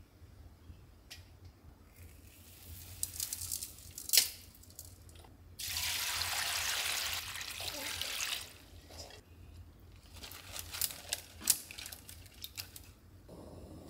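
Water poured from a stainless steel bowl onto raw soybean sprouts in a wide pan, splashing for about three seconds in the middle. Scattered light clicks and rustles come before and after it.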